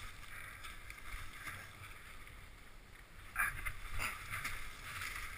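Wind rumbling on the microphone with a steady hissing rustle, and two short knocks about three and a half and four seconds in.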